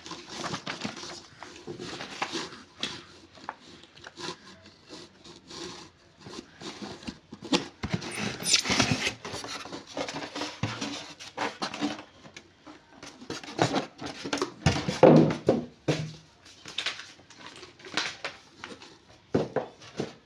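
Unboxing handling sounds: irregular rustling of packaging with scattered clicks and knocks as parts and papers are taken out of the box. There is a louder rustle about eight seconds in and a cluster of heavier knocks near the three-quarter mark.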